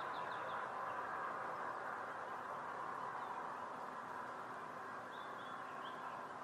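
African wild dogs twittering: brief, faint high chirps in quick little runs, once at the start and again about five seconds in, over a steady hiss.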